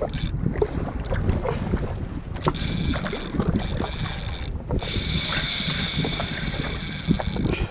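Water slapping irregularly against a jetski's hull, with wind buffeting the microphone.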